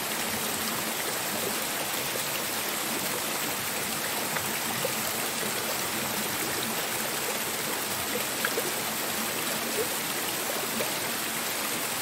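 Steady rush of water from a small waterfall and a pipe spout pouring onto rocks in a stream, with a few faint clicks in the second half.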